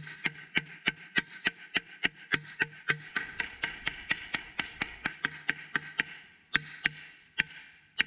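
A hand-held wooden semantron (klepalo), a long wooden board struck with a wooden mallet, beaten in a steady run of wooden knocks at about three to four strokes a second. The strokes come quicker and softer in the middle and slow to a few spaced strokes near the end, in the manner of the Orthodox monastic call to prayer.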